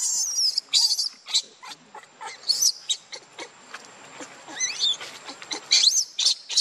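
Baby macaque crying: a series of shrill, high-pitched screams that bend up and down in pitch, repeated several times with short pauses between them.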